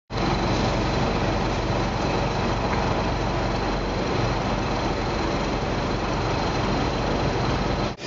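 Steady street traffic noise with a low engine hum from vehicles running close by.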